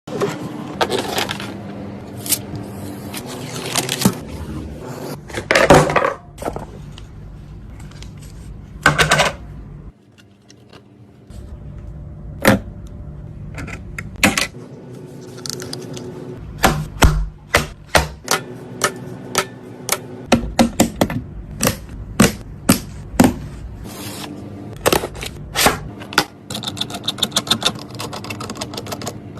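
Irregular clicks, taps and light clatter of hard parts being handled and fitted during a PC build, over a steady low hum. The clicks come thick and fast in the second half.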